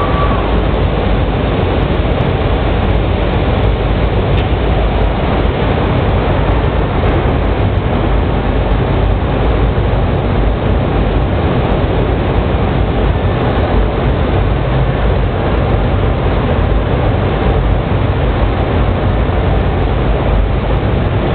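Steady, loud mechanical din of glass-processing machinery running on a factory floor. There are no separate knocks or changes.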